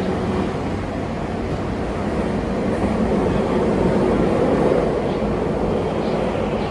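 Tokyu 2020 series subway train running through a tunnel, heard from inside the car: a steady rumble of wheels on rails with a low hum, swelling a little about four seconds in.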